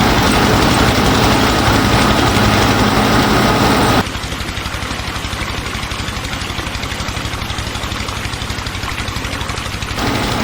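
Tractor-style engine idling with a steady, rapid chugging beat. About four seconds in it cuts abruptly to a quieter, thinner take, then jumps back louder near the end.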